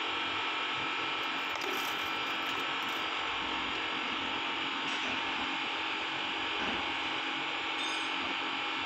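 Steady hiss with a faint hum, with a few faint clicks of chrome-plated spokes and bolts being handled about two, five and eight seconds in.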